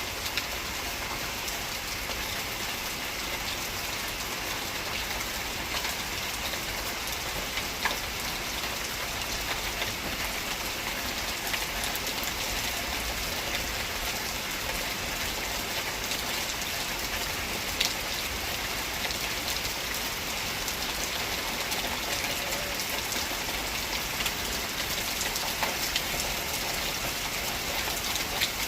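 Steady rain falling, an even hiss with a few louder single drops landing now and then.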